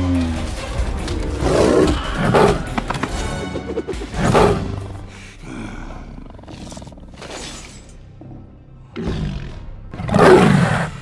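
Big-cat roar sound effects over dramatic film music: several loud roaring bursts a second or two apart, with the loudest near the end.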